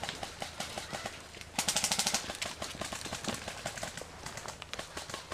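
Airsoft electric guns (AEGs) firing in full-auto, a fast rattle of shots throughout. A louder close burst comes about a second and a half in and lasts about half a second.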